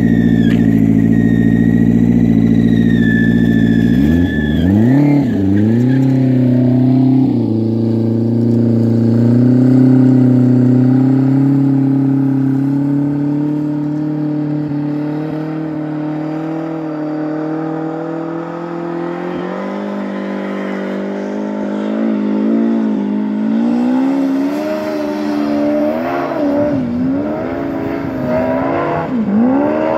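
Turbocharged Yamaha Apex snowmobile (four-stroke four-cylinder) idling, then revving hard about four seconds in as it pulls away and climbs a steep hill at high revs. The engine note fades slowly with distance and dips and rises with the throttle near the end.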